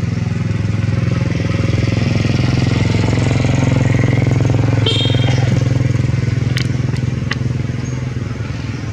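An engine running steadily with a low, even hum, growing louder toward the middle and easing off near the end. A brief high squeak comes about five seconds in.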